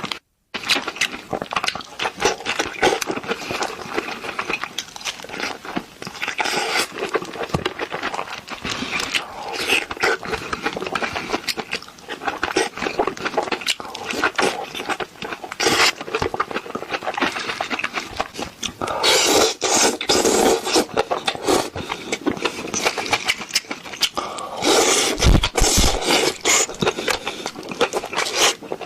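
Close-miked eating sounds of spicy Korean food being chewed and slurped, with wet mouth clicks and smacks throughout, louder in a couple of stretches.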